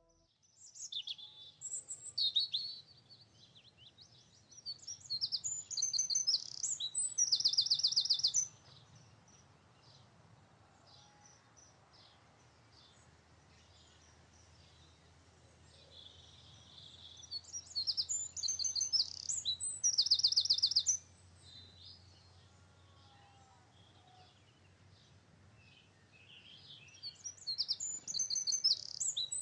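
Birdsong: a bird sings bouts of quick, high chirps, each building to a loud, fast trill. This happens three times, about ten seconds apart.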